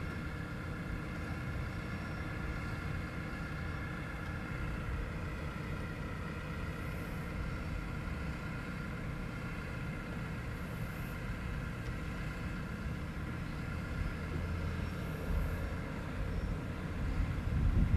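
A quadcopter drone hovering and moving overhead: a steady propeller whine with several high tones over a low outdoor rumble, which swells a little near the end.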